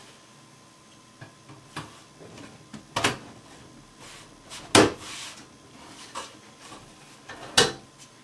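Separate knocks and clunks as a filter insert is slid into an Aprilaire air cleaner cabinet and the cabinet's door is handled: a few light knocks, then sharper ones about three seconds in, the loudest near five seconds, and another near seven and a half seconds.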